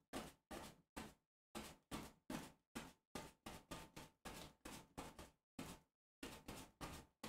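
Paint being mixed with a brush on a palette: faint short knocks in a steady rhythm, about two or three a second, with two brief pauses.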